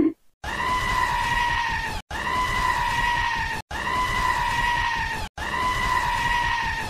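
A high, steady scream of pain, repeated four times as identical cries of about a second and a half each with short gaps, like a looped sound effect: the cry of someone who has just hit their own hand with a hammer.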